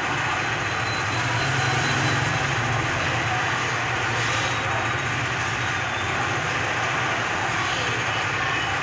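Steady street traffic noise with the low hum of motorcycle engines running.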